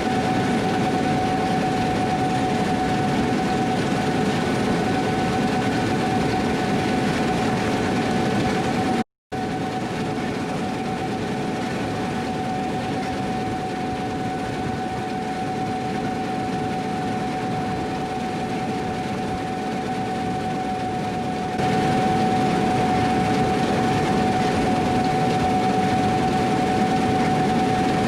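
Gleaner combine running while harvesting wheat: a steady machinery drone with a constant high whine. It breaks off for an instant about nine seconds in and runs louder again from about two-thirds of the way through.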